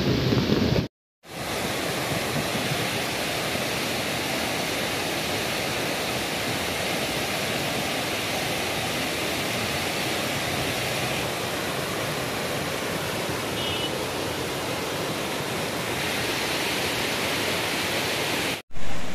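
Muddy flash-flood water rushing in a swollen river, a steady, even rush of water. It drops out briefly about a second in and again near the end.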